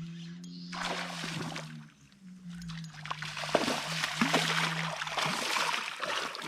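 A hooked small barramundi splashing and thrashing at the water's surface in two spells, the first about a second in and the second longer one through most of the rest, over a steady low hum.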